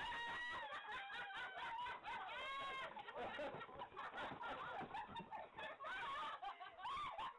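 Women's high-pitched excited laughter and squeals, wavering and broken into quick bursts.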